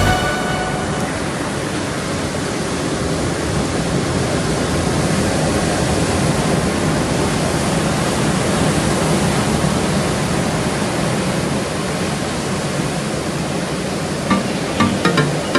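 Ocean surf: a steady wash of breaking waves that swells and eases slightly.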